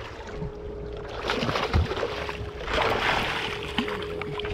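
On-deck sound aboard a fishing boat on the water: a steady hum and low rumble under wind and water noise that swells about three seconds in, with a few light knocks.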